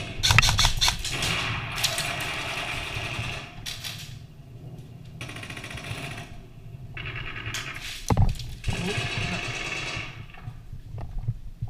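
Airsoft guns firing long, rapid full-auto bursts, three spells of fast mechanical rattling with a sharp knock in the middle of the last one.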